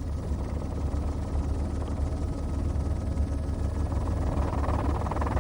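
A steady low rumble with a rapid flutter, growing slightly louder.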